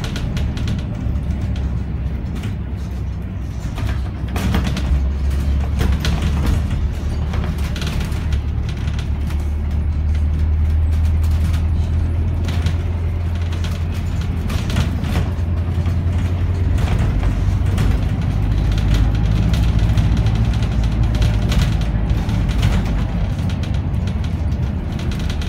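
City bus engine running under way, heard from inside the passenger saloon as a steady low drone, with scattered knocks and rattles from the bus body and fittings. The engine note shifts lower about two thirds of the way through.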